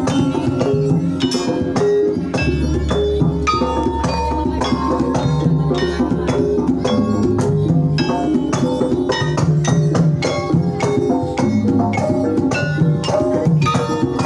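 Javanese gamelan music in Banyumasan style: a dense stream of struck, ringing notes from wooden-keyed gambang and bronze pot gongs over kendang drum strokes, with a deep low tone that enters about two seconds in and holds.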